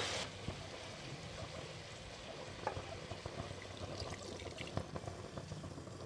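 Water poured from a cup onto fried mutton and spices in a pressure cooker pot, a faint steady trickle with a few light clicks.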